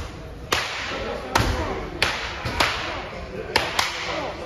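Martial-arts belts lashing people's backs in a belt-promotion gauntlet: about six sharp whip-like cracks at an irregular pace, two of them close together near the end.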